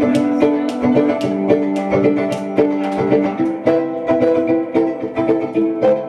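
Violin plucked pizzicato, a quick, steady run of ringing notes in a repeating figure.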